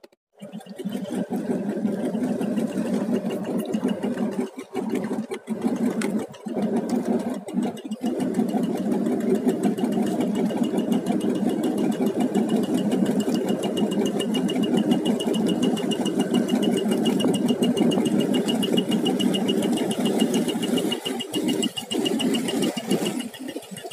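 An engine running steadily: a low, rattling drone with a faint high whine above it, broken by a few short dips in the first eight seconds.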